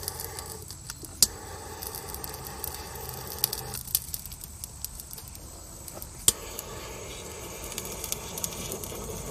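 Small handheld torch flame hissing steadily, with scattered sharp crackling clicks. The hiss drops away for about two seconds in the middle, then returns.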